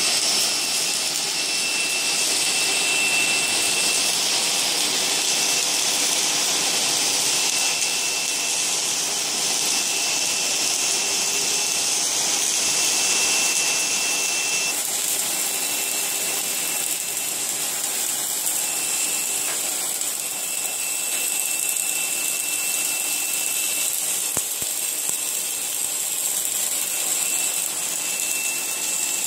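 Automatic submerged arc welding machine running along a steel beam: a steady hiss with a thin high whine that drops in and out, the hiss shifting in pitch about halfway through.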